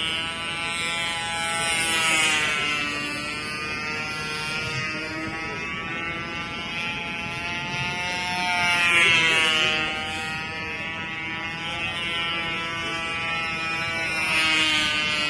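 Control-line model airplane's engine buzzing steadily as the plane flies inverted loops. Its pitch and loudness swell about three times, loudest about two-thirds of the way in.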